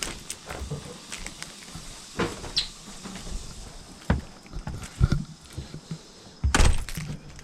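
Scattered knocks, clicks and clatters of things being handled, the loudest a short cluster of rattling thumps about six and a half seconds in.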